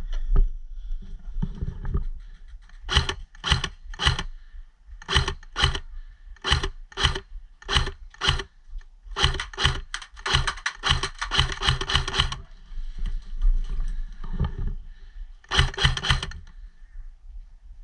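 Footsteps crunching on rough, gritty ground: a walking pace of about two steps a second, quickening into a rapid run of steps for about three seconds, then a few more steps near the end.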